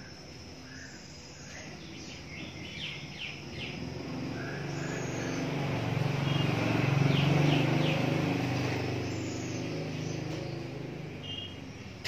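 A motor vehicle's engine passing by, swelling to its loudest about seven seconds in and then fading away, while small birds chirp in short calls.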